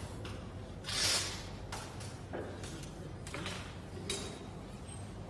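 Sharp metal clicks and taps from hands handling the brass nozzle holder and bolts of a water jet loom, over a steady low hum, with a short loud hiss about a second in.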